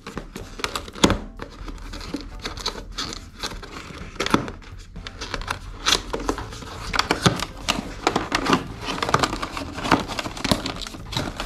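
A cardboard product box being opened by hand: irregular crinkling, rustling and tearing of the packaging, with scattered sharp clicks.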